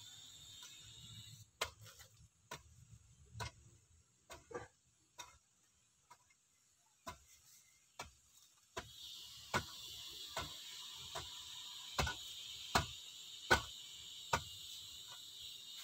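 Sharp, irregular knocks of a wooden digging stick striking hard-packed earth, settling to about one blow a second in the second half. A steady high insect buzz joins in from about nine seconds in.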